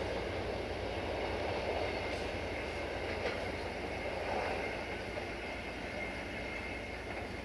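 Passenger train's coaches rolling away on the rails, a steady rumble with a few faint wheel clicks, slowly fading.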